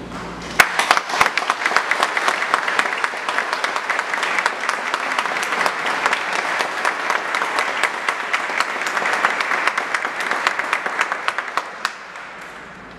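Audience applauding: dense clapping starts about half a second in and dies away shortly before the end.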